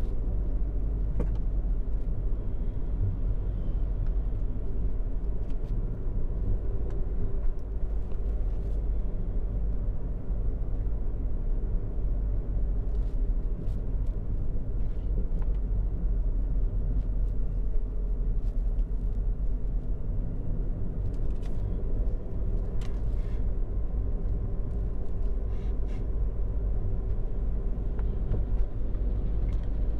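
Car driving along at a steady pace: a steady low rumble of driving noise picked up by a camera mounted on its hood, with a few faint clicks.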